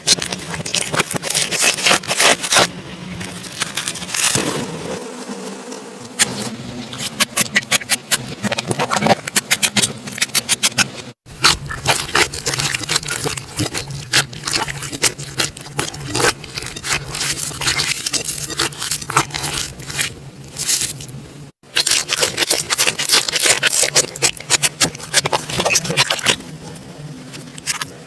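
Slime being squeezed and poked by hand, giving dense rapid crackling and popping clicks, with abrupt cuts about 11 and 21 seconds in.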